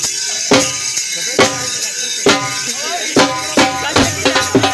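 Dhol drum beaten in heavy strokes about once a second, quickening to a faster pattern near the end, under a been (reed pipe) playing a held melody: jhumar dance music.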